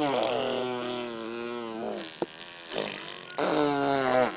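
Toddler making a mouth fart noise, a pitched buzzing raspberry through the lips, twice: one long one of about two seconds, then a shorter one near the end, with a brief click between them.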